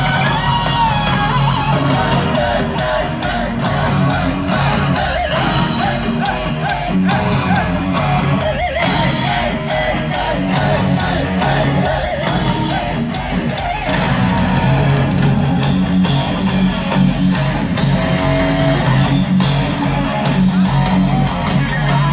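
Heavy metal band playing live over a concert PA, with distorted electric guitar, drums and singing, heard from far back in the crowd.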